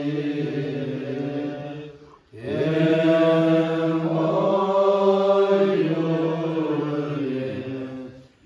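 Tibetan Buddhist monks chanting a dedication prayer together in low, sustained voices. The chant breaks off briefly for breath about two seconds in, then resumes.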